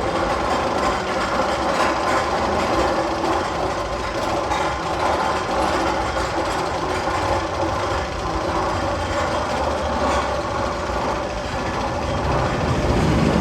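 Roller-coaster tunnel sound effect: a steady mechanical rumble like a running train or engine, growing slightly louder near the end.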